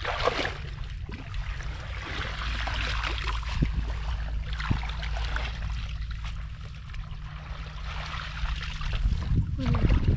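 Water sloshing and trickling while someone works in shallow water, over a steady low rumble, with a few small clicks.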